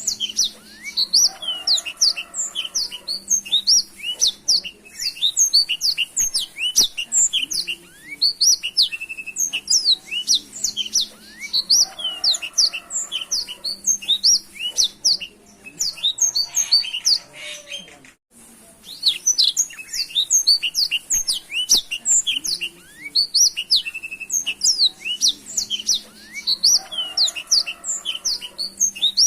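A blackthroat (black-throated canary) singing a fast, continuous song of high chirps and trills, which cuts out briefly about eighteen seconds in and then resumes.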